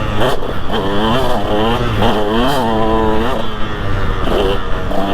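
2003 KTM 200 SX single-cylinder two-stroke engine being ridden hard, its revs rising and falling again and again as the throttle is opened and closed.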